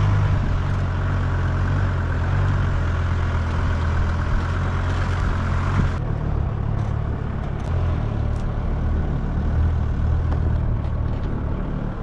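Campervan driving slowly over a sandy dirt track: its engine runs with a steady low rumble, mixed with the noise of the tyres rolling over sand. About six seconds in, the sound turns abruptly duller.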